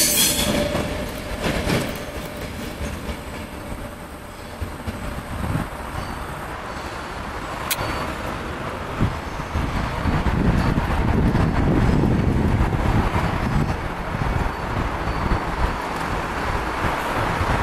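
ETR 470 tilting electric train rolling away over station points, its wheel and running noise fading. A thin wheel squeal dies out in the first half second, and a few sharp clicks from the wheels on the points follow. In the second half a low wind rumble on the microphone grows.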